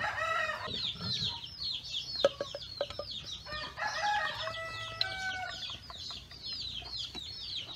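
Chicks peeping over and over in short, high, falling chirps, with lower, longer chicken calls at the start and in the middle. A few faint clicks of liquid soap being poured from a plastic bottle into a plastic measuring cup.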